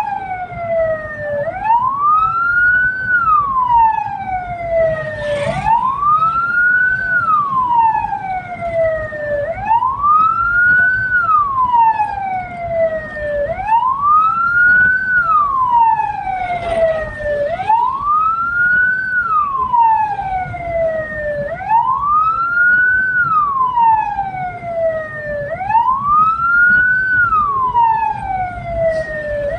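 Hearse siren wailing in a slow, even cycle: a quick rise and a long fall, repeating about every four seconds, over a low rumble of vehicle and road noise.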